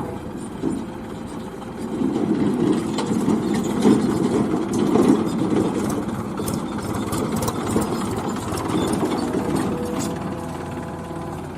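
JCB backhoe loader's diesel engine running, growing louder about two seconds in and easing off near the end, with scattered clanks and clicks.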